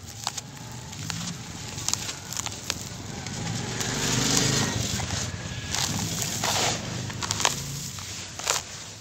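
Dry, gritty charcoal powder being squeezed and crumbled by hand, the grains and dust sifting back down onto the pile. It makes a grainy hiss full of small crunches and ticks, which swells into a louder pouring rush about four seconds in.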